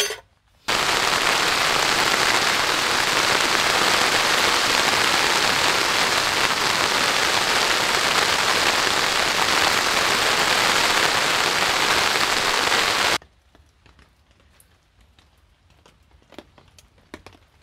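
Heavy rain pelting down in a dense, steady hiss that starts abruptly under a second in and cuts off abruptly about 13 seconds in. After that there are only faint scattered ticks and taps.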